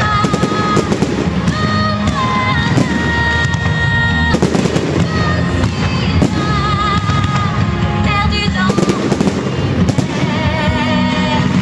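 Fireworks display: repeated sharp bangs and crackles of bursting aerial shells and fountains, mixed with the show's music of sustained notes. The explosions are loud enough to drown out much of the music.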